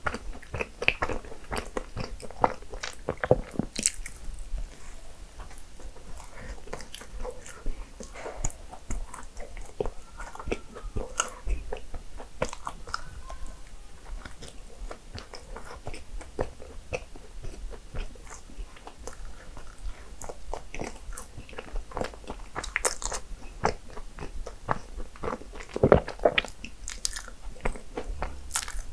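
A person biting and chewing cinnamon rolls, with many short crisp clicks throughout and a few louder bites, one about three seconds in and one near the end.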